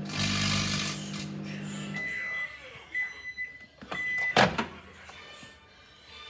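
Microwave oven humming, with a brief loud rush of noise in the first second, then falling silent about two seconds in. It then gives three short high end-of-cycle beeps, followed by a sharp click of the door being opened.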